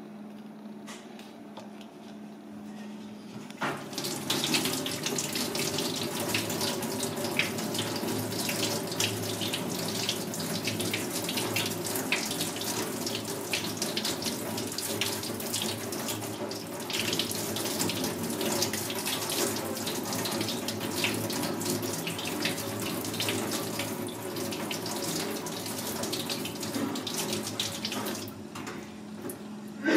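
Tap water running into a stainless-steel sink, switched on about four seconds in, splashing over hands as raw clam meat is rinsed under it.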